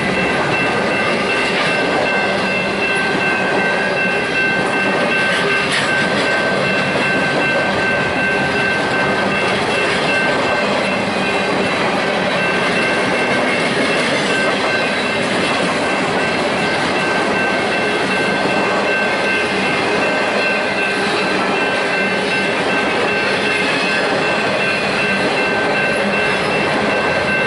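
Union Pacific freight train of empty intermodal well cars rolling past at close range: the loud, steady noise of steel wheels on the rails, with a steady high-pitched ringing squeal from the wheels on top.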